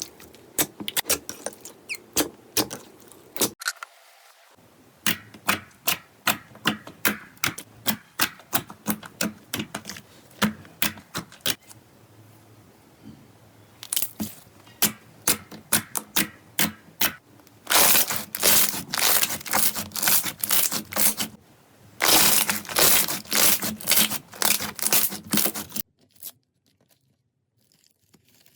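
Slime crackling and popping in rapid sharp clicks, with two louder, denser stretches of crackling in the second half that cut off shortly before the end.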